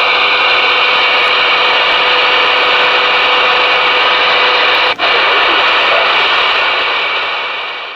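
Steady static hiss from the Ranger RCI-2970N4 ten-meter radio's receiver with no signal on the channel, broken by a brief dropout about five seconds in and fading out near the end.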